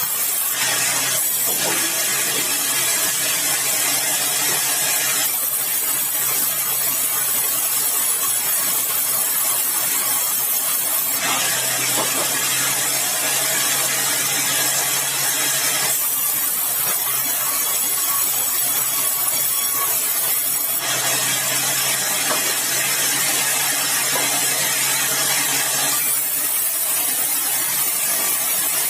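Sawmill saw running and cutting through a large, dry, hard red balau log, with a steady low hum under the noise of the cut. The sound switches back and forth every five or six seconds between a brighter, hissier stretch and a duller one.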